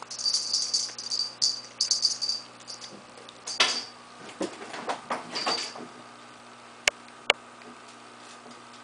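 A cat scampering and scrabbling over carpet while playing with a toy, in a run of quick scuffling, rustling bursts, followed near the end by two sharp clicks as it climbs onto the cat tree and the top of a fish tank.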